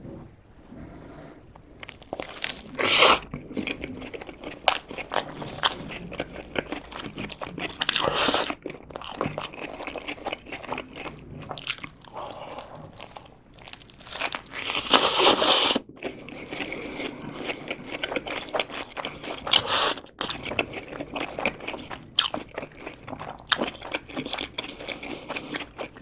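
Close-miked bites into and chewing of a Burger King Quattro Cheese burger with its toasted mozzarella-topped bun: crunchy, crackly bites and wet chewing. The loudest crunches come about 3, 8, 15 and 20 seconds in.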